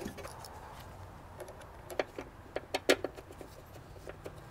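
Metal wiper motor and linkage assembly being set into the windshield cowl: a scattering of sharp clicks and clunks, most between about two and three seconds in.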